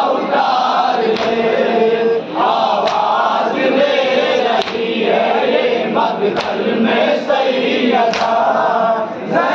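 A group of men chanting a nauha, a Shia lament, in unison. Sharp chest-beating slaps of matam land together about every 1.7 seconds, five times, in time with the chant.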